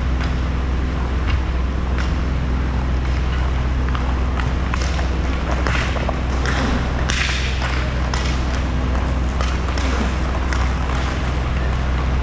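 Roller hockey play on a sport-court floor: scattered sharp clicks and knocks of sticks and pucks over a steady low hum. Around the middle there is louder scraping as a player skates close by with his stick on the floor.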